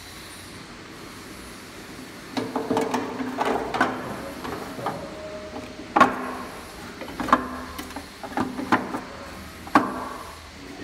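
White plastic auger screws clunking and knocking against a stainless steel hopper and its drive shafts as they are slid into place by hand. A string of knocks starts about two seconds in, with four sharper strikes in the second half.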